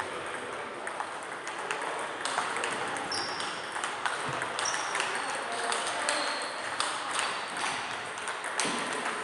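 Table tennis balls clicking off tables and bats in quick, irregular succession, with rallies going at several tables at once, over steady hall noise; a few short high squeaks.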